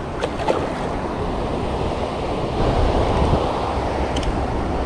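Steady rushing, rumbling wind noise buffeting the camera microphone, heaviest in the low end, with a few faint clicks.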